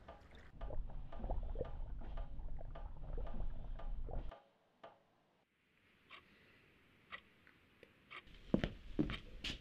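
Small scattered ticks and clicks over a low rumble, cutting off abruptly a little over four seconds in to a faint hiss. Near the end come a few sharp knocks and handling noise as a coat is lifted off a hook on a door.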